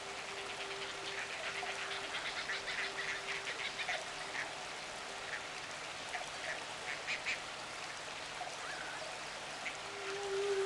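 Relaxation-music soundtrack with nature sounds: bursts of quick, chattering bird calls over a soft held synth note, which fades out about halfway and returns near the end, and a faint watery hiss.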